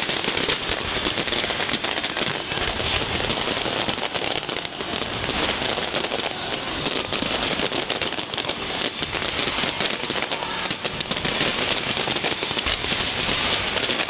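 Fireworks crackling: a dense, continuous crackle of countless tiny pops, like heavy rain, that never lets up.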